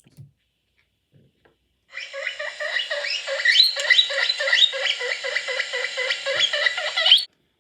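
Recorded guinea pig wheeking played from an MP3 player through the small Snap Circuits speaker: a rapid run of rising squeals, thin and without any bass, starting about two seconds in and cutting off suddenly near the end.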